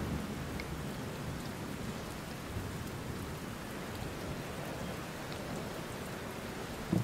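Wind buffeting the camera microphone: a steady low rumbling hiss.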